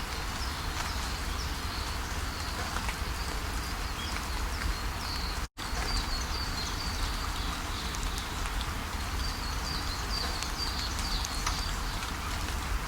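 Steady rush of a waterfall with small birds chirping in short, high, repeated notes over it. The sound cuts out for an instant a little past halfway, then resumes.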